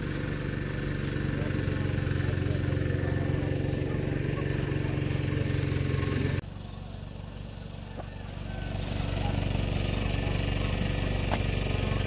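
A small engine running steadily at idle, with a low, even hum. It drops away abruptly about six seconds in and comes back up gradually a couple of seconds later.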